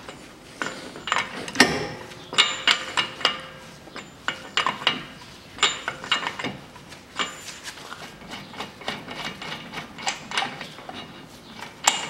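Socket wrench unscrewing a car's 30 mm front drive-shaft hub nut, the brake disc held still by a screwdriver through its vents: a run of sharp metallic clicks and clanks in irregular clusters.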